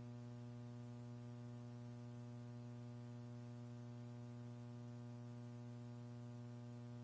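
Steady electrical hum with a faint hiss on a launch countdown audio feed: a low buzz with a ladder of evenly spaced overtones that does not change.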